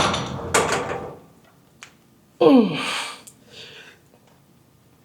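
A sharp knock, then forceful breathing through a lift, with a short groan of effort falling in pitch about two and a half seconds in.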